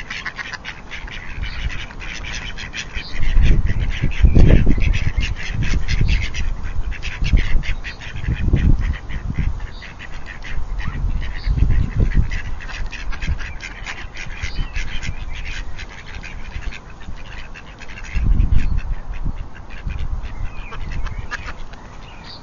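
Mallards quacking and chattering in quick runs of short calls, broken by several loud low rumbles.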